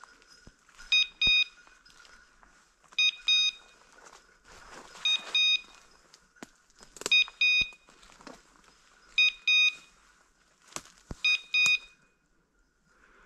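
Electronic beeper collar on a hunting dog sounding a double beep about every two seconds, six times. Faint rustling of dry leaves and brush and a few snapping twigs underneath.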